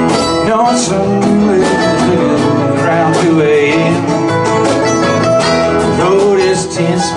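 Live country-rock band playing an instrumental break between sung lines: strummed acoustic guitars, picked mandolin, electric guitar and bass guitar, played steadily without a pause.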